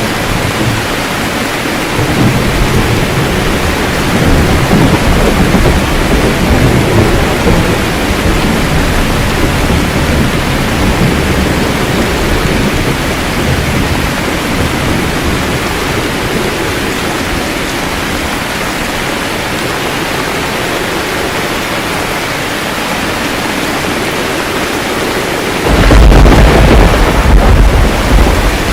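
Steady heavy rain with rolling thunder: a long rumble builds about two seconds in and dies away, then a sharper, louder thunderclap breaks in near the end.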